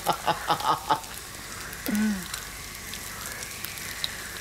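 Bacon and eggs sizzling on a gas-fired griddle plate, a steady faint crackle. The tail of a laugh dies out in the first second, and a brief low voiced sound comes about two seconds in.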